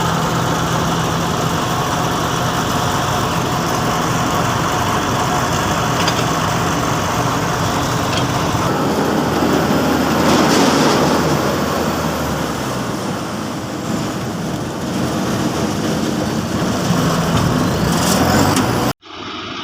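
Corn picker harvester's engine and machinery running steadily, with a change in the engine's low hum about halfway through. The sound cuts off abruptly near the end.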